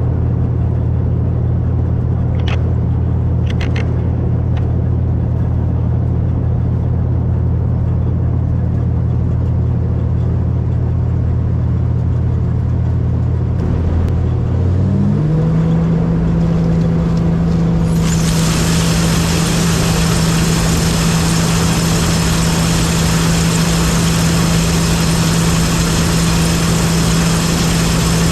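John Deere 9860 STS combine's diesel engine running steadily; about 14 seconds in its pitch rises as it speeds up, then holds at the higher speed. About 18 seconds in a loud steady rushing hiss joins it.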